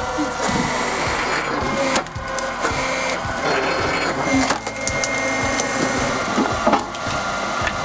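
Log-splitting machine working: its engine and hydraulics run steadily with a regular pulsing beat, while wood cracks sharply several times as it splits.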